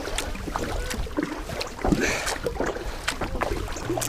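Wind on the microphone and water lapping against a kayak, with a few light knocks from the boat and gear.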